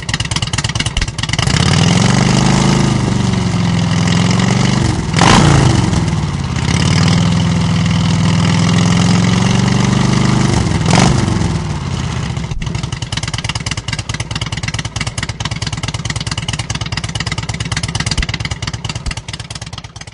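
Motorcycle engine running and being revved, with two sharp throttle blips about five and eleven seconds in, then settling into a steady idle until it stops near the end.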